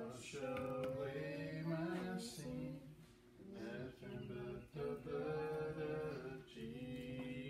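A young boy singing a hymn, in slow phrases of long held notes.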